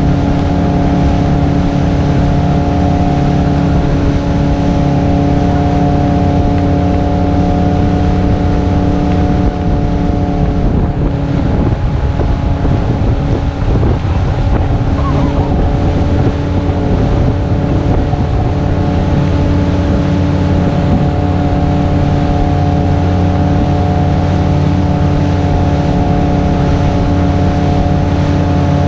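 Motorboat engine running steadily at speed while towing inner tubes, with the rush of the churning wake behind the stern. For a few seconds in the middle the engine note is partly covered by a rougher rushing noise.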